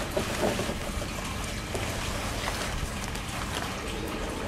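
Steady background hiss and low rumble, with a few faint clicks.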